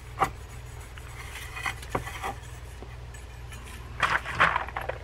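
Steel wool being rubbed on a metal fishing-reel spool to buff off tarnish: a few light clicks and taps of handling, then a spell of scratchy rubbing near the end.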